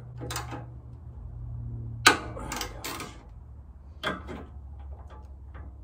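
Hand ratchet wrench and socket working an exhaust bolt: scattered metallic clicks and clanks, the sharpest about two seconds in, then a run of lighter ratchet ticks toward the end.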